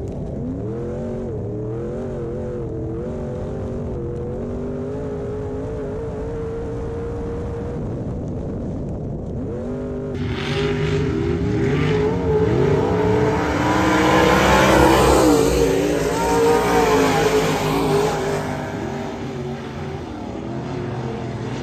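Dirt-track modified's V8 engine heard from inside the car, its pitch rising and falling as the throttle goes on and off through the corners. About halfway through, a louder, fuller sound of several racing modifieds takes over, with more than one engine pitch crossing. It swells to a peak a few seconds later and then eases off.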